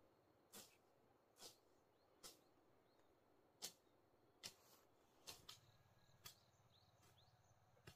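Faint, evenly spaced knocks of a hand hoe chopping into the soil, about one a second, from a field being worked for planting corn.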